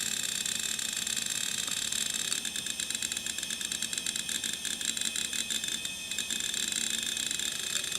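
Samsung WN321620A 2 GB hard drive working through a file copy: rapid chattering clicks of the read/write heads seeking, over a steady high-pitched whine from the spinning drive. The clicking is densest in the middle.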